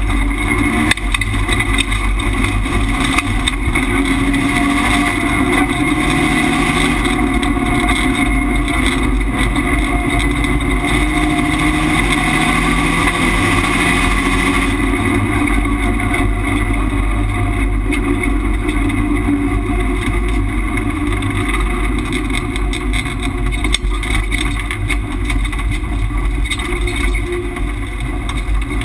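Subaru Impreza rallycross car racing, heard from inside the cockpit: the engine runs hard under load, its pitch rising and falling with the throttle, a little quieter near the end.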